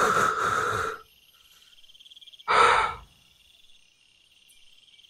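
Crickets chirping in a steady, pulsing high trill, broken by two loud rushes of noise: one lasting about a second at the start and a shorter one about two and a half seconds in.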